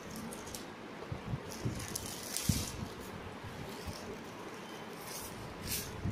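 Clear plastic wrapping bag crinkling and rustling in short bursts as a projector is pulled out of it, with a few soft knocks from handling.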